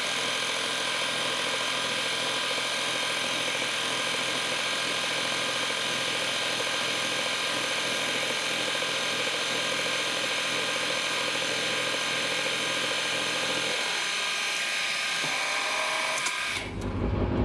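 Manual milling machine taking a finishing pass with a fly cutter across the face of a metal block: a steady, even mechanical running sound of the spindle and cutter at work. The lower part of the sound drops away about 14 seconds in, and the sound stops abruptly near the end.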